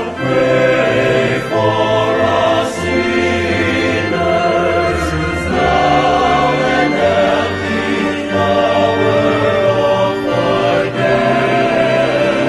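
Choir singing a slow sacred piece in held chords that change every second or two.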